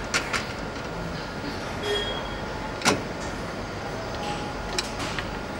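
Steady engine-assembly-line hall noise with a few sharp metal clanks, the loudest about three seconds in, as a crankshaft is lowered into an engine block with a hoist gripper.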